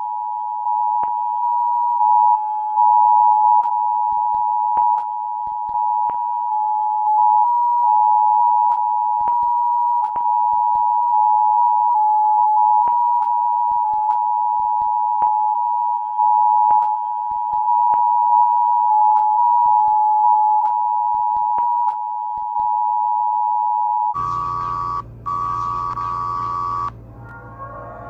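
Emergency Alert System two-tone attention signal: two steady electronic tones sounding together, stepping louder and softer, with faint scattered clicks. About 24 seconds in it gives way to a higher electronic tone over a low buzz, broken by a short gap, and the sound changes again near the end.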